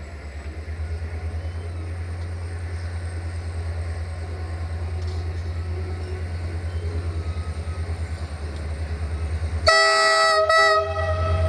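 EMD-engined CFR class 64 diesel-electric locomotive approaching, its engine throbbing steadily and growing louder. Near the end it sounds a loud horn of several tones at once for about a second, and a fainter horn tone holds on after it.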